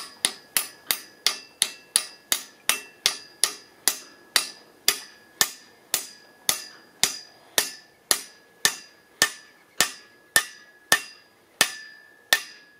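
Ball-peen hammer tapping a machined steel collar down onto the tapered top of a clothesline's pipe post. It strikes in an even run of about two blows a second, each with a short metallic ring, driving the collar fully home on the taper.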